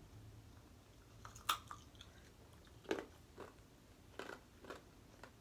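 Someone chewing crunchy food close to the microphone: about half a dozen sharp crunches, the loudest about a second and a half in.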